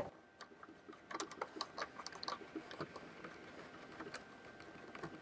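Faint, scattered small clicks and ticks of a solenoid valve and its union nut being handled and fitted into the flush box housing, with a sharper click at the very start.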